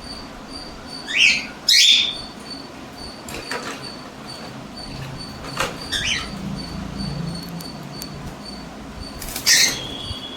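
Two pet cockatiels squabbling: a few short, loud screeches about one and two seconds in and again near the end, with fainter calls between.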